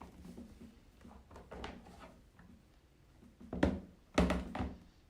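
Knocks and clatter from handling the grow-out pen's parts and water-hose fittings: a few light taps, then a sharp knock about three and a half seconds in and a quick cluster of knocks just after four seconds.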